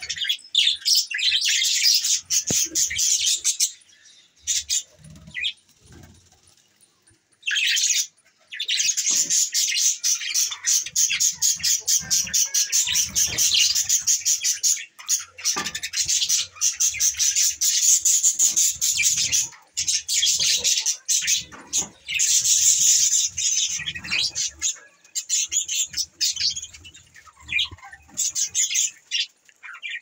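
A flock of budgerigars chattering: dense, rapid, high-pitched chirps and warbles. They fall quiet for about three seconds a few seconds in, then chatter on without a break.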